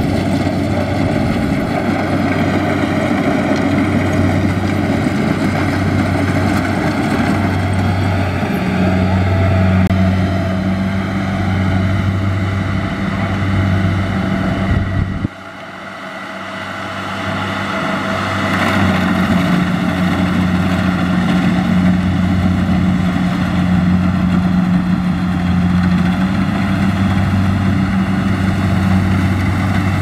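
Kubota combine harvester's diesel engine running at a steady hum. About halfway through the sound drops away suddenly, then builds back up over a few seconds.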